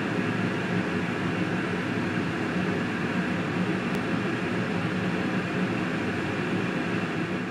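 Steady, even rushing noise, like a running machine or fan, holding the same level throughout.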